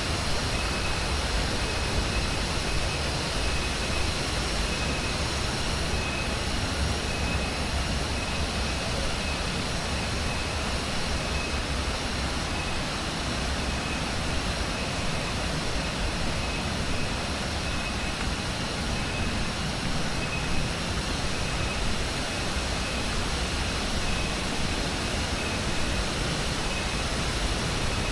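Banyumala waterfall's water rushing steadily, with a faint high note repeating over it.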